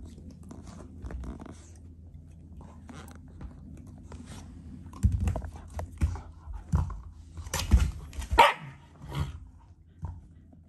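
A Shiba Inu and a black Labrador play-fighting: after a few quiet seconds, a burst of sudden snaps, scuffles and barks in the second half, loudest with a sharp bark a little after eight seconds in.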